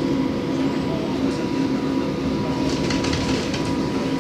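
Streetcar (tram) running, heard from inside the car: a steady rumble with a constant electric hum, and a few faint ticks about three seconds in.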